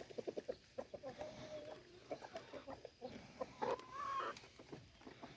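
Chickens clucking: a quick run of short clucks at the start, then a couple of longer drawn-out calls, the second rising slightly in pitch.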